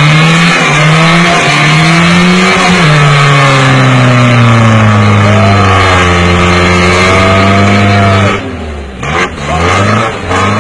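Classic Lada sedan's four-cylinder engine held at high revs, wavering up and down, while it spins its rear wheels pulling against a horse and cart. About eight seconds in the revs drop off, followed by a couple of short blips of the throttle.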